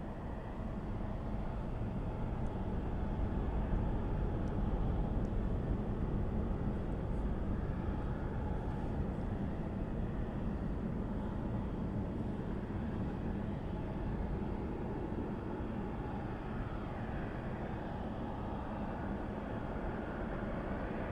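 Southwest Boeing 737 jet engines at takeoff power on the departure roll: a steady low rumble that swells over the first few seconds, then slowly fades.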